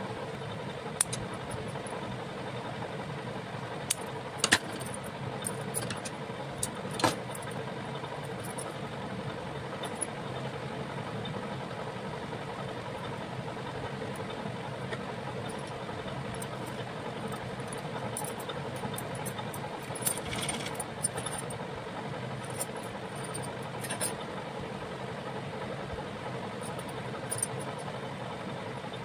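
A steady background hum, with scattered short clicks and jingles of glass bangles knocking together as hands handle fabric strips.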